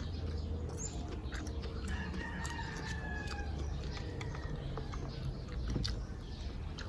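A rooster crowing once, a long faint call about two seconds in, with scattered small clicks around it.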